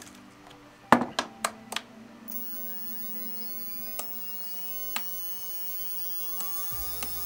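Four sharp clicks about a second in, then the brushless motors of a bladeless OMPHobby M1 RC helicopter spool up with a high, layered whine whose pitch rises slowly. A low hum comes in near the end.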